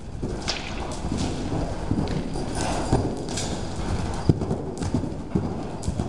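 Hoofbeats of a paint horse running loose on indoor arena footing, an uneven run of dull hoof strikes with one sharper crack about four seconds in.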